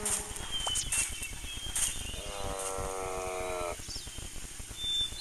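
A long, steady animal call, a bleat-like cry about two seconds in that lasts a second and a half, over a background of short high chirps.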